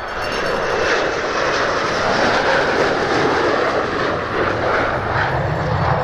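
Fighter jet engines running as the aircraft land and roll out on the runway: a loud, steady jet noise.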